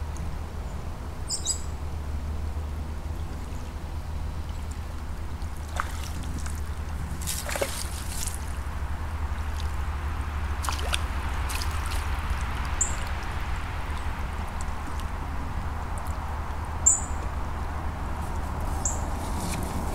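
Water splashing and sloshing at the bank as a hooked roach is drawn in to the landing net, over a steady low rumble. A few short high chirps sound here and there.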